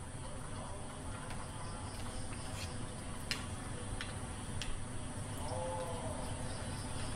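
Outdoor ambience: a steady low rumble with insects chirping in a faint, evenly pulsing rhythm, a few sharp clicks in the middle and a brief pitched call a little before six seconds.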